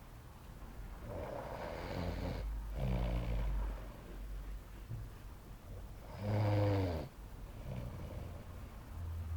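A man snoring in his sleep: three snores with pauses between them, the loudest about two-thirds of the way through.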